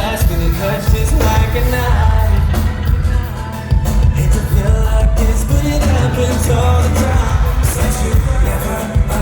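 A live band plays a song, with a lead singer over heavy bass and drums, recorded loud and boomy from within the concert audience.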